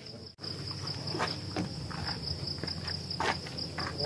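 Crickets chirping in a steady, high, evenly pulsing trill.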